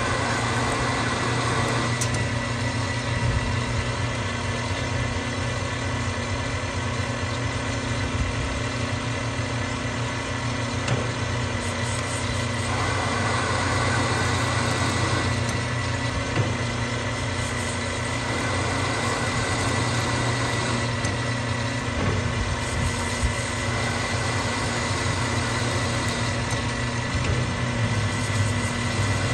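Manual lathe running under power during single-point thread cutting on a shoulder bolt: a steady motor and gear hum with a thin high whine. A rougher rasp rises in two stretches, near the start and again around the middle.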